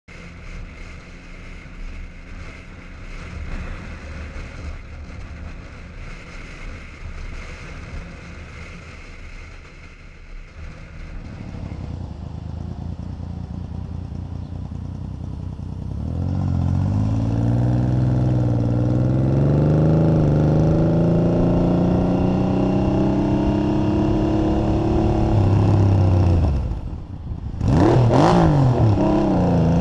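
Yamaha XS850 three-cylinder motorcycle engine idling. About halfway through it pulls away and accelerates, its pitch rising through the gears. Near the end the engine note drops briefly, then comes a short loud sweep before it runs on steadily.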